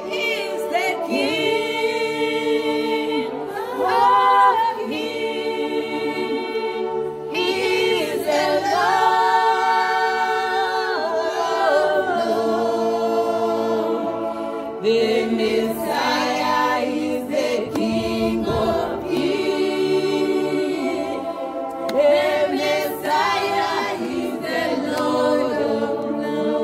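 Gospel praise song: a choir holds sustained chords while a melodic voice line slides up and down over them.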